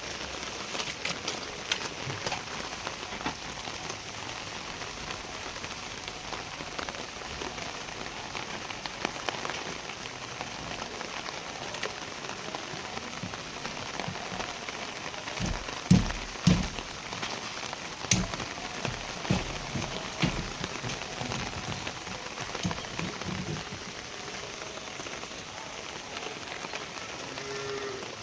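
Steady rain falling, with many small drop ticks, and a handful of dull knocks about halfway through.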